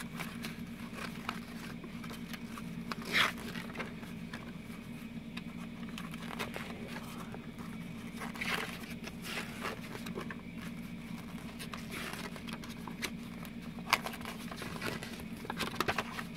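Paper pages of a CD lyric booklet rustling as they are handled and turned, with a few soft clicks and taps, the last ones bunched near the end. A steady low hum of the car runs underneath.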